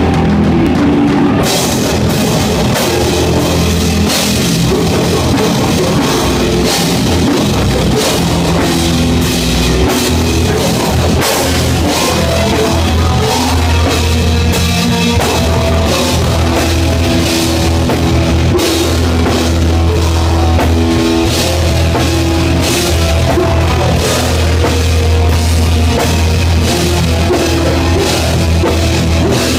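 Live heavy rock band playing loud: drum kit and electric guitar. The drums and cymbals crash in about a second and a half in.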